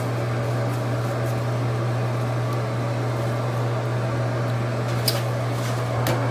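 Electric makeup brush cleaner's small spinner motor running with a steady hum, with a couple of light clicks near the end.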